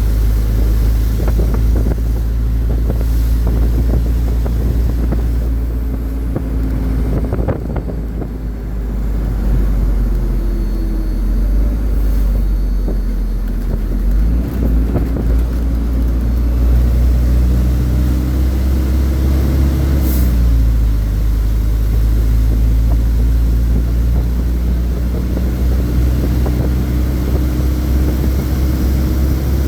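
Fire engine's diesel engine running under way, with a loud low drone and road and wind noise. The engine note rises and falls a few times as it speeds up and changes gear.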